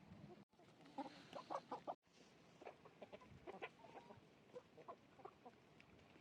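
Chickens clucking faintly, a scatter of short quick clucks, busiest a second or two in.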